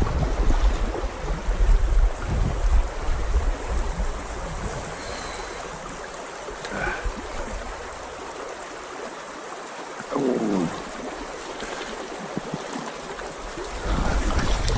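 Steady rushing and trickling of a small trout stream, with wind buffeting the microphone for the first few seconds. A brief pitched sound slides in pitch about ten seconds in.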